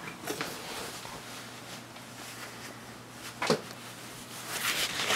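Quiet household movement sounds: one sharp knock about three and a half seconds in, and rustling near the end, over a faint steady hum.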